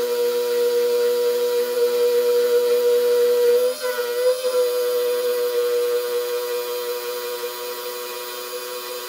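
Milling machine cutting aluminium dry with an end mill: a steady, high pitched whine with overtones that wavers briefly about four seconds in and eases a little near the end.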